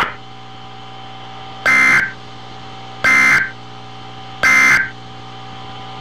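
NOAA Weather Radio EAS end-of-message data bursts: three short bursts of two-tone digital warbling, about a second and a half apart, marking the end of the warning broadcast. A steady hum and hiss from the receiver carries on between them.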